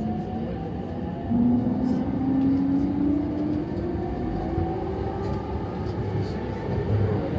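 JR East E231-series electric train's traction motor and gear whine, several tones slowly rising in pitch as the train picks up speed, over the rumble of the running car. A step louder about a second in.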